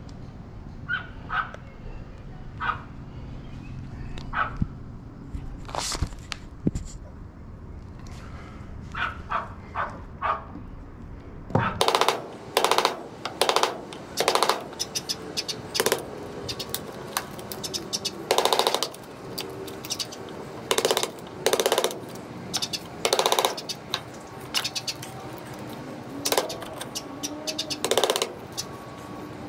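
Wooden mallet striking a wood chisel to cut wood away from a timber sill: a run of sharp knocks, about one or two a second, loud from about twelve seconds in, with fainter scattered taps before that.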